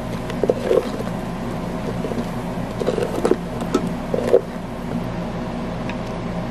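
A wooden spatula stirring liquid in a stainless steel Instant Pot inner pot, with brief scrapes and knocks against the pot about half a second in and again around three and four seconds in, over a steady low hum.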